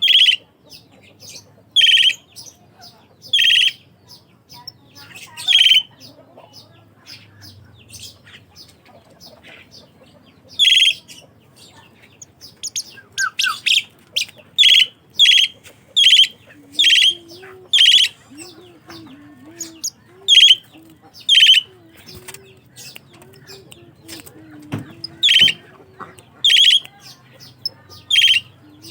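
Asian pied starling (jalak suren) calling: short, loud, harsh notes repeated irregularly. They are spaced a second or two apart at first, then come in a quicker run of several a second in the second half.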